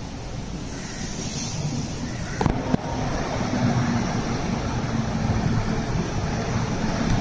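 A diesel single-deck MAN city bus driving slowly across a bus interchange, its engine running with a steady low hum that rises slightly a few seconds in. Two sharp clicks come about two and a half seconds in.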